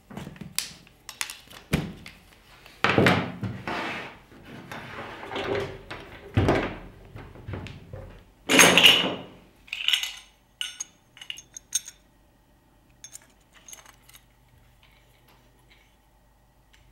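Handling noises from unpacking equipment: cables and hoses rustling and knocking, parts set down on a wooden bench, and small metal pieces clinking. A run of sharp clinks about ten seconds in, then it goes quiet.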